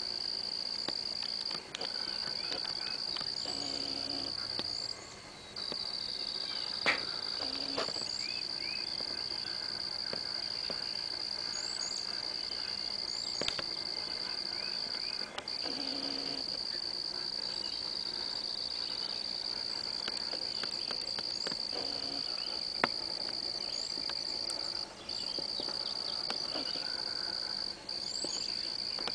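Steady high-pitched chorus of insects, droning on with only a few brief gaps. Short high chirps are scattered over it, and there are a couple of sharp clicks.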